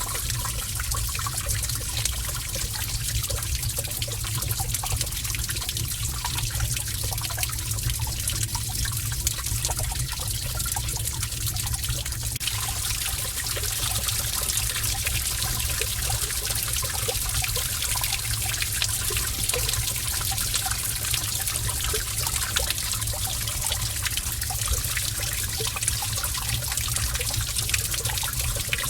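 Gentle running water trickling steadily in a cave, with scattered small drips over a constant low rumble.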